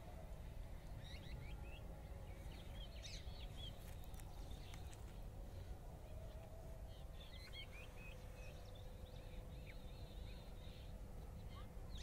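Small birds chirping in scattered short calls, in two loose bouts, over a steady low outdoor rumble with a faint hum beneath.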